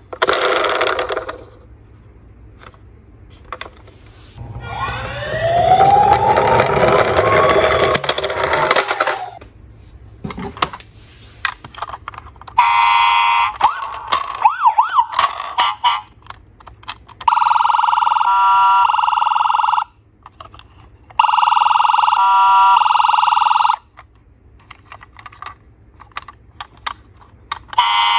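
Battery-powered toy ambulances playing electronic siren sound effects in separate bursts a few seconds long. First comes a rising-and-falling wail, then a fast warbling siren, then two steady buzzing tone bursts. Between the bursts the plastic toys click as they are handled.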